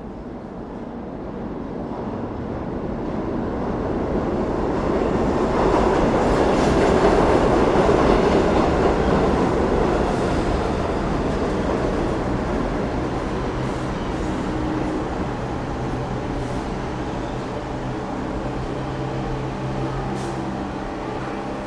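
New York subway train rumbling on the rails, growing louder to a peak about seven seconds in, then easing into a steadier low hum with a few brief metallic clanks.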